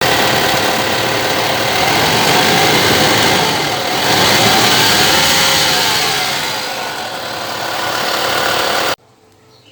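2019 Toyota Fortuner engine running with a rough, harsh noise from its alternator, the pitch rising and falling once as the engine is revved; the uploader puts the noise down to a worn alternator bearing and pulley. The sound cuts off suddenly near the end.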